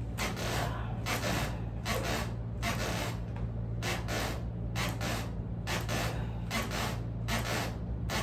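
Hands rubbing across a person's back in quick, repeated massage strokes, about a dozen short hissing swishes, with a steady low hum underneath.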